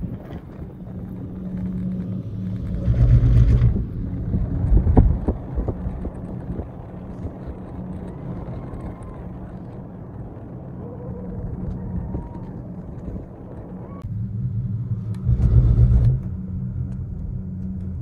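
Inside a moving gondola cable car cabin: a steady low hum from the cabin riding the cable, swelling into heavier rumbles about three seconds in and again near the end, with a few knocks about five seconds in.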